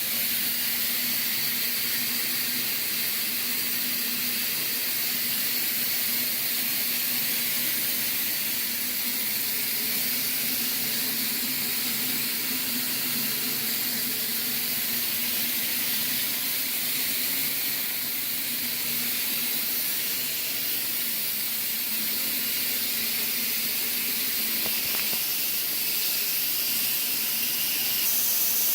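Dry fog machine running, a steady hiss of mist being sprayed with a faint motor hum underneath; it gets slightly louder near the end.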